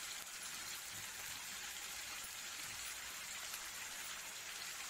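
Oil sizzling steadily in a frying pan under chopped tomatoes, coriander leaves and garlic as they fry lightly, an even high hiss.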